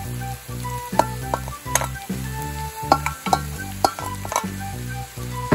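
Chopped mushrooms tipped from a steel bowl into a hot pan of frying onions: sizzling, with about half a dozen sharp metallic taps as the bowl knocks against the pan.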